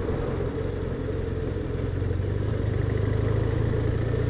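BMW R1200RT's boxer-twin engine running steadily while the motorcycle is ridden, under road and wind noise, its note growing a little louder about two seconds in.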